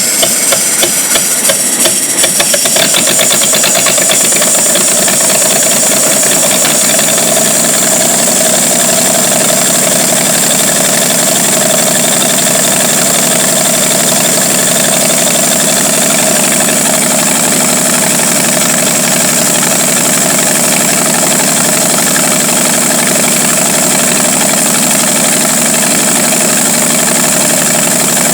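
1949 Studebaker 2R5 truck's Commander six-cylinder engine running unevenly for the first few seconds, then settling into a steady idle. The engine has a vacuum leak and will only keep running with the carburettor fully choked.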